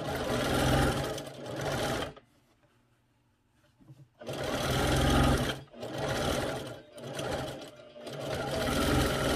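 JUKI semi-industrial sewing machine stitching cotton mask fabric in short runs: it sews for about two seconds, stops for about two seconds, then runs again in several bursts with brief pauses between them, feeding the fabric through strongly without jamming.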